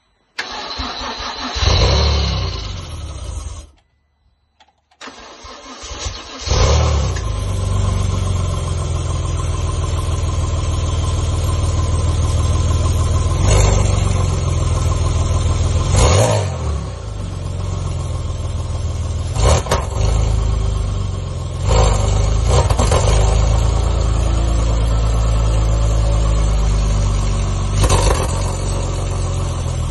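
The DeLorean DMC-12's swapped V6 engine is cranked on its first start-up with a new exhaust and muffler; the first try stops after about three seconds. It cranks again and catches about six seconds in, then runs steadily with about five quick throttle blips given by hand.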